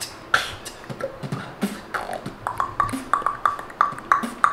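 Beginner's vocal beatboxing: mouth-made kick, snare and hi-hat pops and clicks, loose at first, then a quicker, more even run of sharp clicks in the second half.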